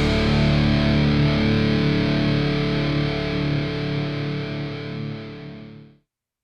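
Outro music: a held, distorted electric-guitar chord ringing out and fading, then cutting off suddenly near the end.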